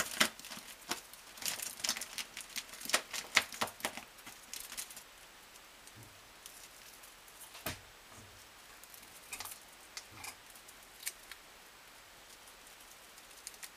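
European ground squirrel clawing and biting at adhesive tape stuck to a wall, making crinkling, tearing clicks. The clicks come in a quick run for the first five seconds or so, then only a few scattered ones.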